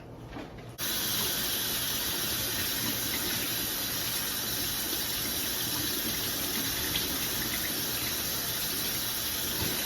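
Water running steadily from a kitchen tap, starting suddenly about a second in.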